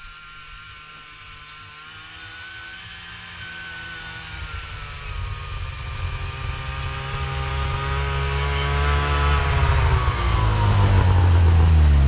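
A snowmobile engine approaching, growing steadily louder, then dropping in pitch over the last couple of seconds as the machine slows and pulls up close. A few faint high jingles sound in the first few seconds, from the bite-alarm bells on the ice rod.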